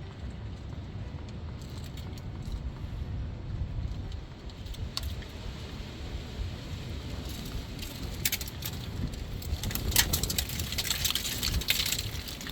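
Metal clicks and clinks of a wrench working the car's oil drain plug loose, getting busier near the end. A splashing hiss follows as the hot engine oil starts running out into a drain pan.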